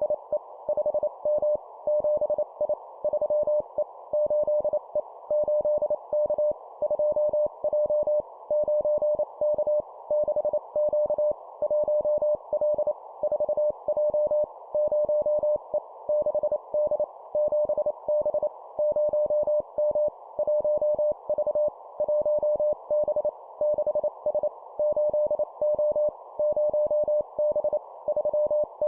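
Morse code (CW) practice tone keyed at 25 words per minute: one steady beep switched on and off in quick dots and dashes, grouped into short words with brief gaps between them, over a steady band of background hiss.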